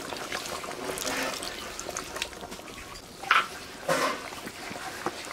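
Fish curry bubbling at a boil in a large wok as garam masala paste is tipped in from a bowl, with steady bubbling and small crackles. Two short, louder sounds come about three and four seconds in.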